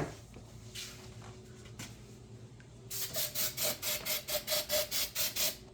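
Meat grinder parts being coated with food-grade silicone spray: two short hisses, then from about three seconds in a quick rhythmic run of hissing strokes, about four a second, each with a faint squeak.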